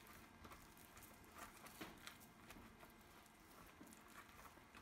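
Faint, scattered crunching and patting of rubber-gloved hands packing damp, crumbly homemade high-temperature cement by hand.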